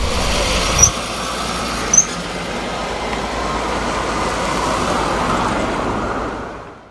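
Road traffic: a truck and cars driving past, a steady rush of engines and tyres, with two short high chirps about one and two seconds in. The sound fades out near the end.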